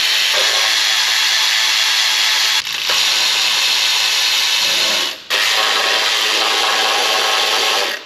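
Cordless ratchet running in three long bursts with brief pauses between, spinning out loosened bolts.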